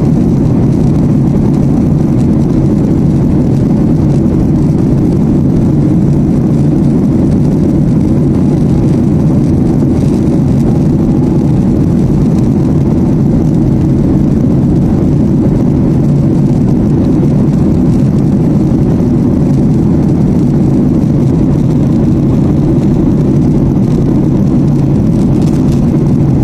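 Steady, loud cabin noise of an airliner in flight: a deep, even drone of the engines and rushing air, heard from inside the passenger cabin.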